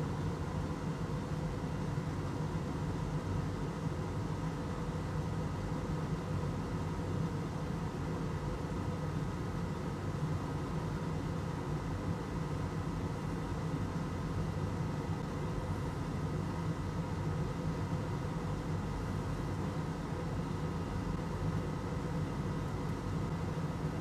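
Steady machine hum with a few fixed tones over a soft even hiss, unchanging, with no distinct clicks or knocks.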